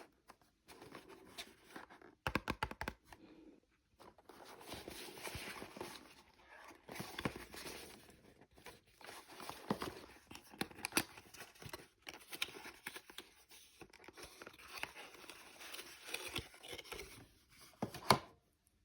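Plastic wrapping of a McDonald's Happy Meal toy being torn open and crinkled by hand, with sharp clicks and snaps among the crackling, a quick run of clicks a couple of seconds in and one loud snap near the end.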